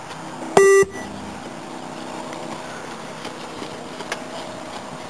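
A single short electronic beep from a 20 m multi-stage fitness (beep) test recording, about half a second in, signalling the end of a shuttle run. It is loud and brief, about a quarter second, followed by steady background noise with a few faint taps.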